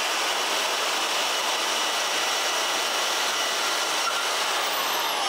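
Milwaukee portable bandsaw running steadily while its blade makes a short cut through a small steel nut held down on a sliding sled.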